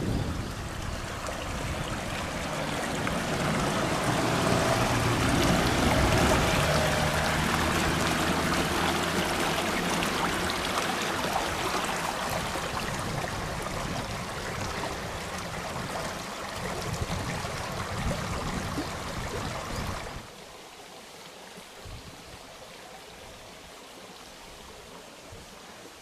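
Running water of a mountain stream, a steady rushing, with a low drone under it for several seconds near the start. About three-quarters of the way through it cuts abruptly to a fainter rush of water.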